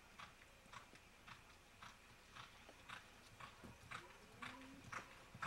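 Quarter Horse mare's hoofbeats on arena dirt under saddle, faint and steady at about two strikes a second.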